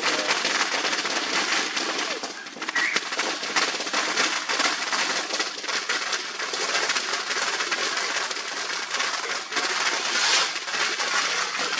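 Fireworks crackling and hissing steadily, a dense stream of tiny pops over a continuous hiss.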